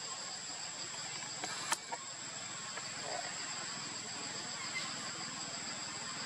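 Steady high-pitched chorus of insects, with a sharp click a little under two seconds in and a fainter one just after.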